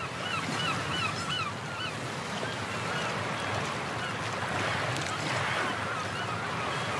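A vehicle driving on a rough dirt mountain road, heard from inside as a steady noise of engine, tyres and wind. Over it come runs of short, high squeaky chirps, a quick series in the first second and a half and a few more later.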